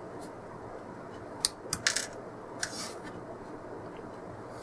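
A few sharp, small clicks about a second and a half in, then a short softer rattle near three seconds, from handling at the test bench, over a steady low background noise.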